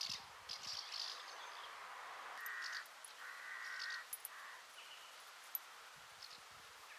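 A crow-family bird cawing: two long, harsh caws about halfway through, with small birds chirping faintly around them.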